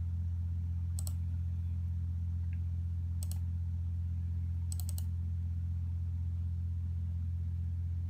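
Computer mouse clicks: a single click about a second in, then two quick double clicks about three and five seconds in. Under them runs a steady low hum.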